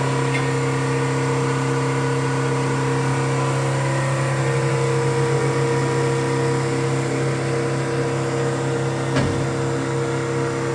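A steady mechanical hum that holds one pitch without change, with a single knock about nine seconds in.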